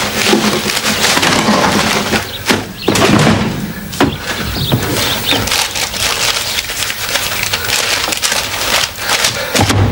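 Hands rummaging through paper and small cardboard boxes on a shelf and in a wooden drawer: paper crinkling and rustling, with many short knocks of boxes and wood.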